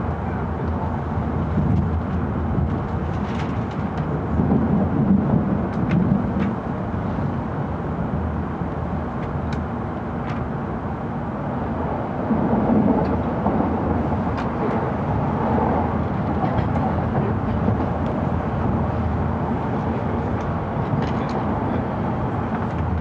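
Running noise inside the passenger cabin of an N700 series Shinkansen arriving at a station: a steady rumble with a low hum and a few faint clicks.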